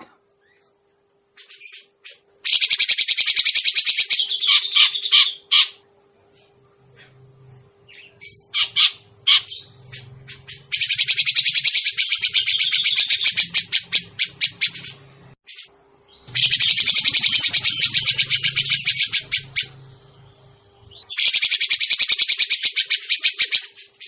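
Grey-cheeked bulbul (cucak jenggot) calls played as a bird-luring recording: four long runs of fast, harsh chattering, with shorter sharp notes scattered between them. A faint steady hum sits underneath.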